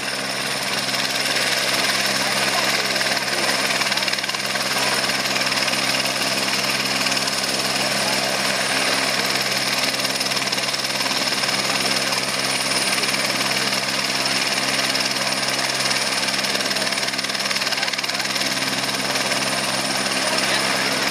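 Eurocopter AS350 Écureuil helicopter running on the ground with its main rotor turning: a steady turbine whine over the rapid beat of the rotor blades, loud and unchanging.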